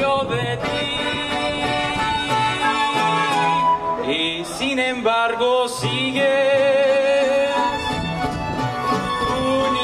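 Mariachi ensemble playing live, violins carrying the melody over strummed guitars.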